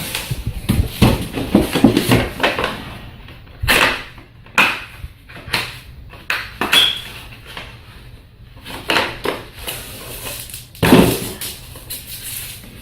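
Irregular rustling, knocks and clatter of packaging and plastic product containers being handled and taken out of a box, with a couple of louder knocks.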